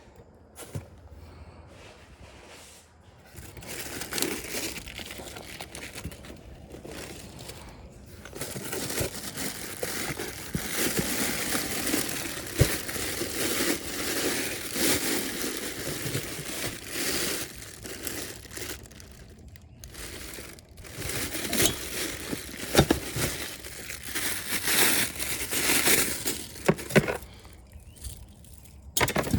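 Irregular crinkling and rustling with scattered sharp clicks and knocks, quieter for the first few seconds and again briefly in the middle.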